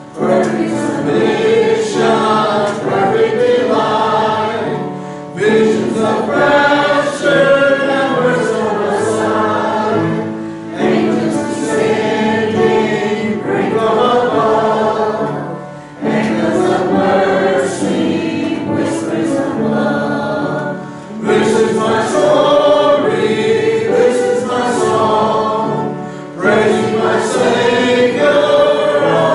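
Church congregation and choir singing a hymn together, the phrases broken by short pauses for breath about every five seconds.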